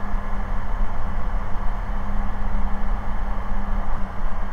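Ikarus C42 microlight's engine and propeller running steadily in cruising flight, heard inside the cockpit as an even drone.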